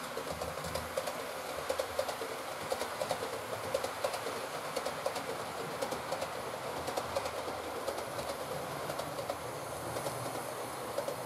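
Model train of a BR 218 locomotive and a long rake of coaches running along the layout's track: a steady rolling rattle with many rapid small clicks.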